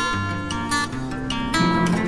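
Background music led by a strummed guitar.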